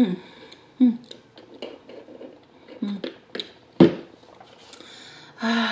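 Close-miked mouth sounds of a person chewing a coffee shake with crispy coffee crystals in it: small wet clicks, with a few short closed-mouth hums between them.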